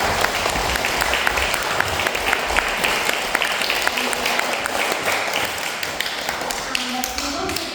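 A hall full of young children applauding: many hands clapping at once in a dense, steady stream.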